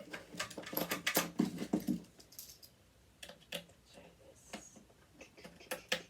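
Small hard objects being handled: a rapid run of clicks and light clatter for about two seconds, then scattered single clicks, as tools and small metal parts are picked through and set down on a work surface.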